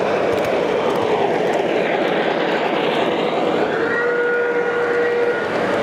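O gauge model freight cars rolling past on the layout's track, a steady rumbling rush of wheels on rail. About four seconds in, a steady held tone sounds for just over a second.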